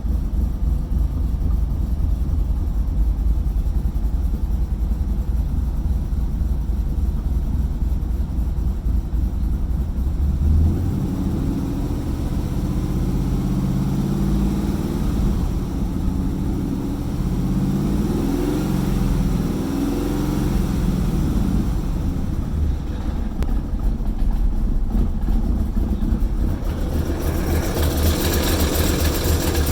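Engine running at a rough idle, a steady low rumble whose pitch wavers unevenly for a stretch in the middle.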